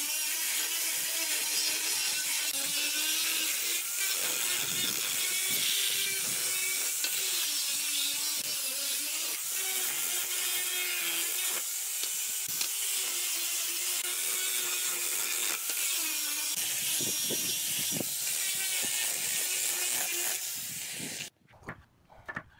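Electric angle grinder with a sanding disc running against a wooden board: a steady, loud hiss of abrasive on wood over the motor's slightly wavering whine. It cuts off abruptly near the end, leaving a few faint knocks.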